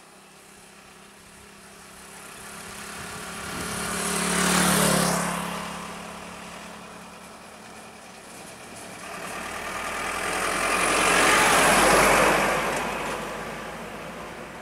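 Road vehicles passing close by one after the other, each swelling and fading away. First a motorcycle engine, about five seconds in. Then a broader, longer pass of a diesel truck's engine and tyres, peaking about twelve seconds in.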